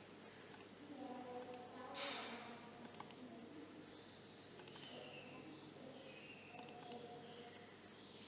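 Typing on a Tofu65 mechanical keyboard with lubed and filmed T1 switches and cherry-profile keycaps: faint keystroke clicks in short clusters of two to four, a few seconds apart.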